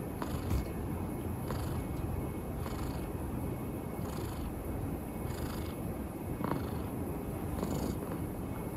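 Domestic cat purring close to the microphone: a steady low rumble that swells with each breath, about once a second.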